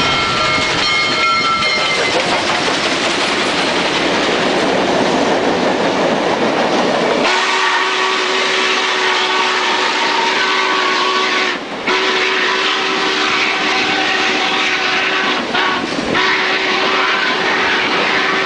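A 1940s steam locomotive gives a short chime-like whistle blast, then passes close by with a dense rush of steam and running-gear noise. After about seven seconds this gives way to Union Pacific passenger cars rolling past with a steady droning hum and wheel noise.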